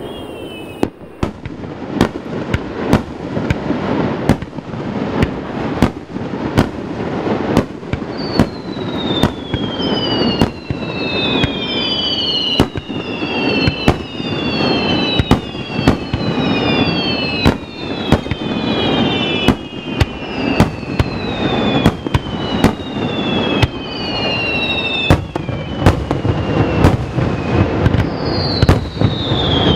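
Fireworks display: aerial shells bursting in quick succession, more than one bang a second, over a continuous rumble of echo from the surrounding mountains. From about eight seconds in, whistling shells add overlapping falling whistles.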